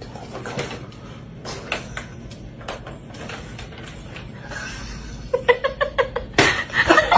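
Plastic cat ball-track toy knocking and rattling on a wooden floor as a cat moves about with the toy stuck over its head. Near the end, someone laughs in quick repeated bursts.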